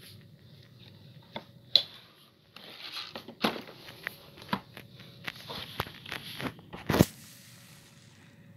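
Handling noises: a string of knocks, clicks and rustles, with a sharp knock about two seconds in and a louder one near the end. No motor is running.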